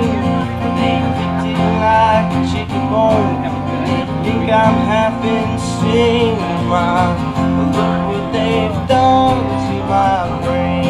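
Country-style music with guitar, playing steadily.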